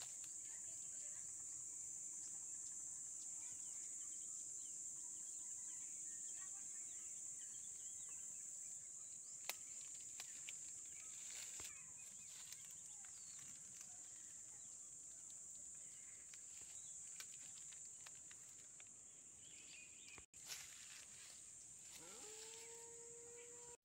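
Steady high-pitched insect chorus with a few faint clicks and rustles. Near the end a short tone rises in pitch and then holds for about a second.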